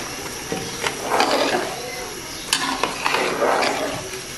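Long metal slotted spoon stirring soaked rice through boiling liquid in a large aluminium pot, with sloshing and two sharp clinks of the spoon against the pot.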